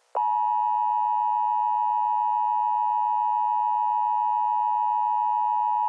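Emergency Alert System attention signal: a steady electronic alert tone that starts abruptly just after a moment of silence and holds without a break.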